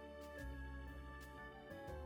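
Soft background music: sustained keyboard-like chords over a steady bass.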